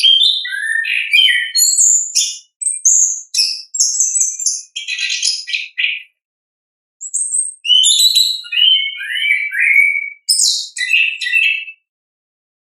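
Orange-headed thrush singing in full song, a fast run of varied whistled and chattering phrases. It breaks off about halfway through, resumes a second later, and stops near the end.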